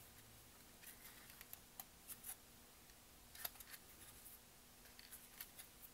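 Near silence, with a few faint, crisp ticks and crinkles of cardstock paper petals being handled and pressed together.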